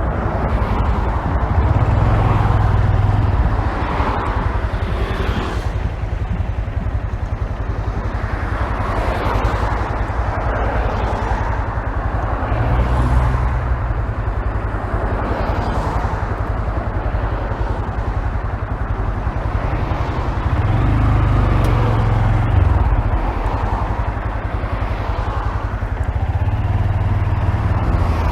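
Honda Grom's single-cylinder engine running on the move, heard muffled from a phone in the rider's pocket, with the engine note swelling louder several times.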